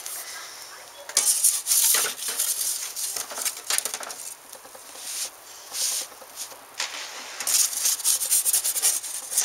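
A metal pizza peel scraping over the stone baking board of an Ooni Karu 12 pizza oven in several strokes as the pizza is slid out, turned and slid back in. The loudest scrapes come about a second in and near the end.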